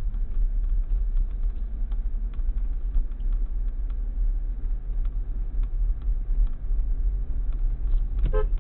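Audi Q5 driving slowly over a rough dirt track, heard from inside the cabin: a steady low rumble of engine and tyres, with scattered small knocks and rattles from the uneven ground.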